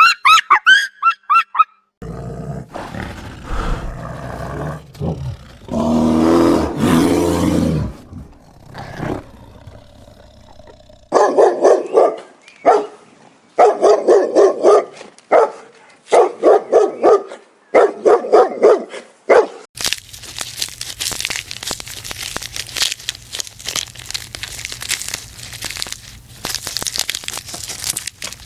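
A run of separate animal sounds. Quick high chirps at the very start give way to a low, drawn-out call. From about eleven seconds a dog barks over and over for about eight seconds, and the last stretch is a steady, noisy hiss.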